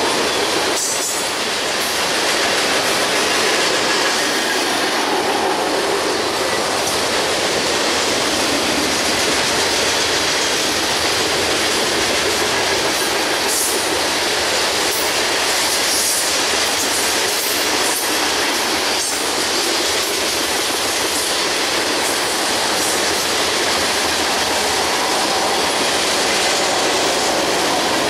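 A mixed freight train's cars rolling steadily past: steel wheels running on the rail in a loud, even rumble, with occasional clacks.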